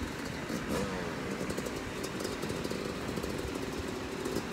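Small engine idling steadily.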